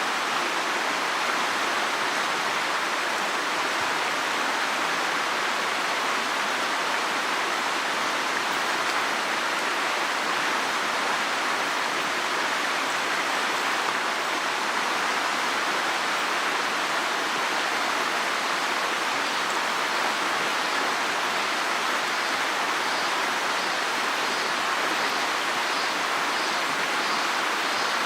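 Mountain stream water rushing steadily over rocks, an even, unbroken rush of water. Near the end, a faint high chirp repeats at even intervals.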